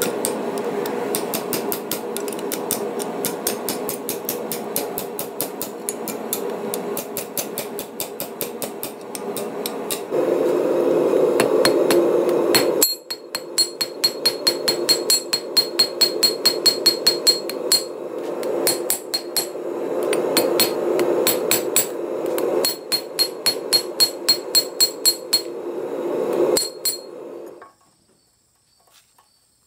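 Hand hammer striking red-hot steel on an anvil in fast, steady blows, several a second, over a steady low rushing noise. For a stretch midway each blow rings bright. The hammering stops near the end.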